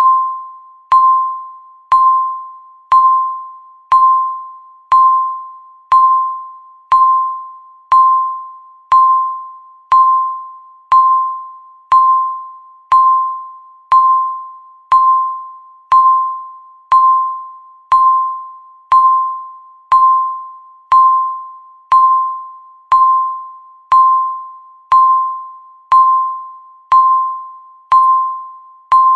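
Electronic countdown timer beeping once a second, the same single pitched tone each time, starting sharply and fading away before the next beep.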